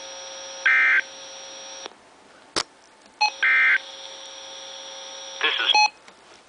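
NOAA weather radio sending the EAS end-of-message data bursts that close a severe thunderstorm warning: two short, loud, buzzy digital bursts about three seconds apart over a steady hum, with a sharp click between them.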